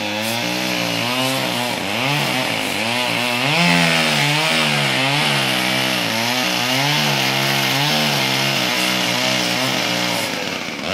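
Two-stroke chainsaw running hard, cutting into the trunk of a dead tree during felling; its engine pitch keeps rising and falling as the chain bites into the wood.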